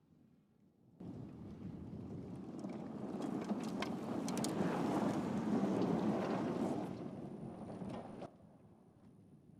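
Tyre and wind noise of an electric pickup truck driving over rough dirt, with scattered clicks of stones. It starts and stops abruptly and swells louder in the middle.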